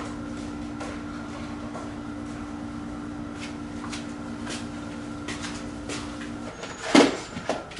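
A steady low hum that cuts off about six and a half seconds in, followed by a short, loud knock or clatter near the end.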